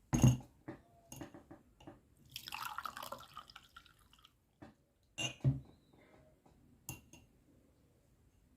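Liquid poured briefly into a cup, with sharp knocks and clinks of kitchenware: one at the start, two together about five seconds in, and a last one near seven seconds.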